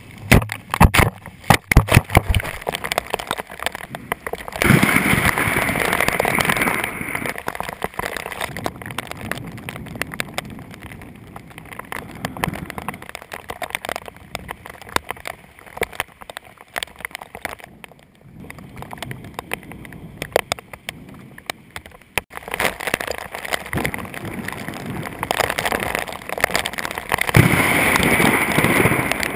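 Rain in a thunderstorm: a rapid patter of drops ticking close by at first, then steady rushing rain that swells louder about five seconds in and again near the end.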